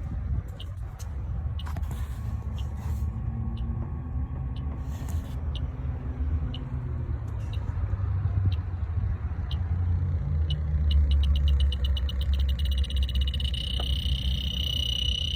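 Electronic refrigerant leak detector ticking about once a second, then speeding up about ten seconds in into rapid ticks that merge into a steady high alarm tone: the probe has found the leak on the evaporator coil. A steady low rumble runs underneath.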